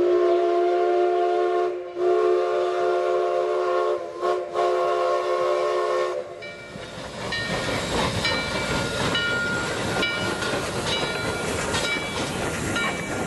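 Steam chime whistle of Durango & Silverton locomotive No. 486 sounding a multi-note chord in two long blasts, a short one and a long one: the grade-crossing signal. The whistle is followed by the chuff and hiss of the locomotive working steam as it moves off.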